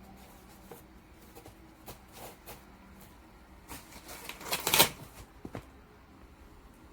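Objects being handled: scattered light clicks and knocks, with a louder burst of rustling and clattering about two-thirds of the way through.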